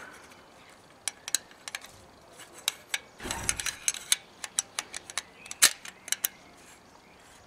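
Light metal clicks and scrapes as the pellet tube of a Diana Model 1 air rifle is slid back into the rusty barrel by hand, with a short rubbing scrape about three seconds in and a sharper click a couple of seconds later.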